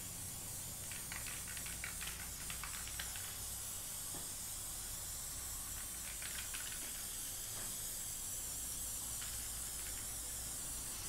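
Aerosol can of spray adhesive hissing steadily as it is sprayed over a plywood sheet, with a few light clicks about a second in and again about six seconds in.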